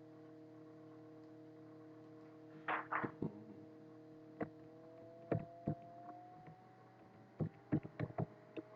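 Faint computer keyboard keystrokes and clicks, scattered irregularly with a short cluster about three seconds in, over a steady low hum.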